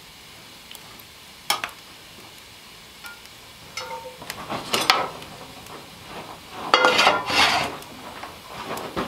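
A metal utensil scraping and clinking against a skillet as food is served onto a plate, after a single sharp click. The loudest clatter comes near the end, when the pan is set down on the wood stove's top with a brief ring.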